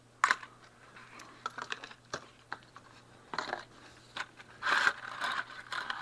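Cardboard box being handled and opened: a sharp snap about a quarter second in, then light scrapes, clicks and rustling, and a longer scraping rustle near the end as the inner sleeve slides out of the box.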